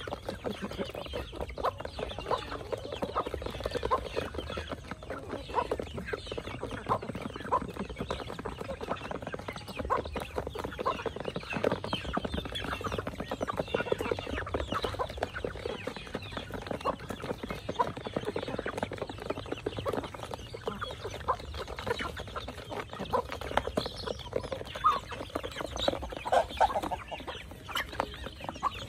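A flock of chickens clucking while feeding, with a constant patter of quick taps as they peck feed from a plastic dish.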